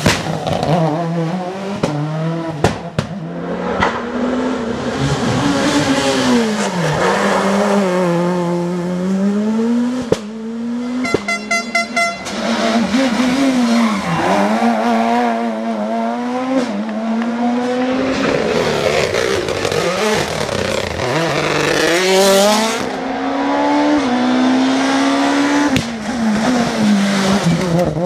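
Rally car engines at full effort on a special stage. The engine note climbs repeatedly as the car accelerates through the gears, then drops away under braking and downshifts. About eleven seconds in there is a brief patch of rapid popping.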